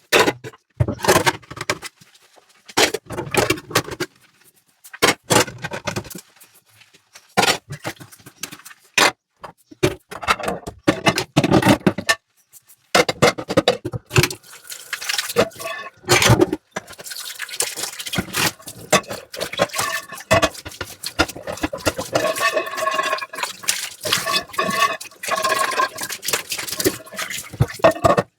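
Dishes being washed by hand in a sink: bursts of knocks and clinks as dishes are handled and scrubbed. In the second half, tap water runs steadily, filling a dish or pot.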